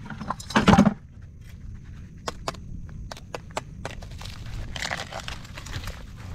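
Metal crab tongs clicking and scraping against a wire crab net while picking up a blue crab, with rustling in the grass. A single loud knock comes just under a second in.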